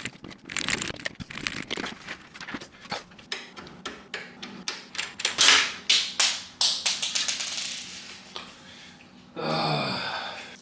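Rapid clicks, taps and knocks of screws and metal and plastic case parts being handled and removed from a PC case. Near the end comes a brief pitched sound about a second long.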